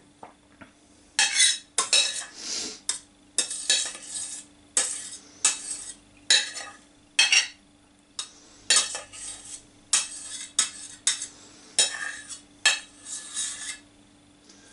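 Metal spoon stirring and scraping cooked peppers and onions in a plastic colander over a stainless steel pot, pressing them to drain off the cooking liquid: about a dozen short scrapes, roughly one a second, with light clinks of spoon on colander and pot.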